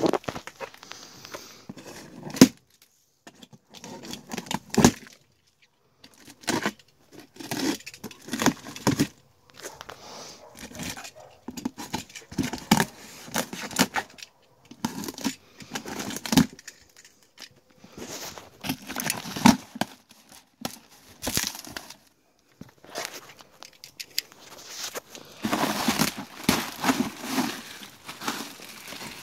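A cardboard shipping box being opened by hand: packing tape tearing and cardboard rustling in irregular short bursts with pauses. Near the end, plastic air-cushion packing crinkles steadily as it is pulled out of the box.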